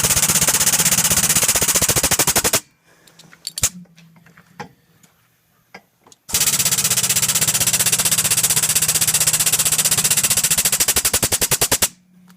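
Power hammer pounding hot steel with rapid, even blows through a cross-peen die, spreading the blade wider. The blows come in two long runs, the second about twice as long, with a short pause between in which a low motor hum and a few light clicks remain.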